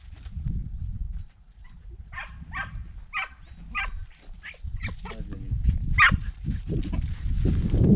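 Andalusian podenco hounds barking in a string of short, high yelps, about two a second, as they work a rabbit hidden in the scrub, over a low rumble on the microphone that grows louder near the end.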